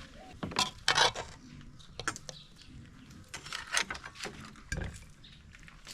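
Irregular light clicks and knocks, a handful of short sharp strikes spread over a few seconds, typical of utensils and pots being handled.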